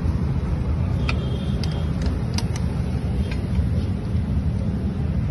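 A few light metallic clinks as a stainless-steel motorcycle silencer is handled and lined up against its mounting, over a steady low rumble.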